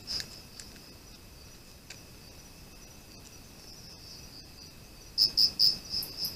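Crickets singing: a steady high trill, with one loud chirp at the start and a run of about five louder chirps near the end.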